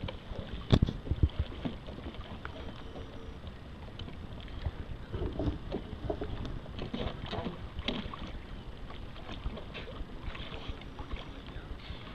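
Lake water splashing and lapping around a swimmer in the water alongside a kayak during a paddle-float self-rescue, with a couple of sharp knocks about a second in and scattered splashes and handling noises through the middle.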